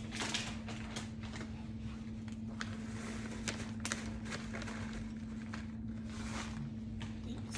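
Scattered light taps and scrapes of utensils working food in a dish, over a steady low electrical hum.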